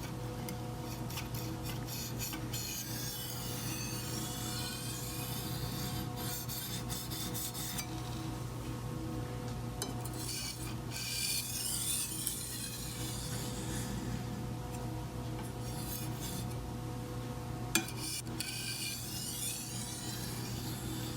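Chef's knife blade stroked across a black Arkansas whetstone in repeated rasping strokes, alternating sides to deburr the edge at the final, finest stage of sharpening. A steady low hum runs underneath.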